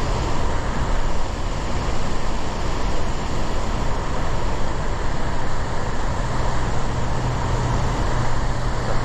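Steady rushing noise, with a low steady hum joining about six seconds in.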